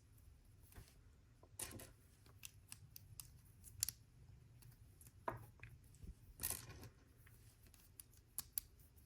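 Faint scattered clicks and a few brief rustles of small plastic LEGO pieces being picked out and handled.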